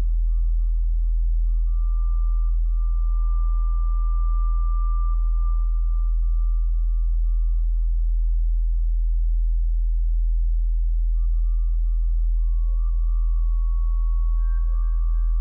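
Electronic ambient drone soundtrack: a loud, steady deep hum with thin sustained tones above it. A high tone swells about four seconds in, and further tones, one lower and one higher, enter near the end.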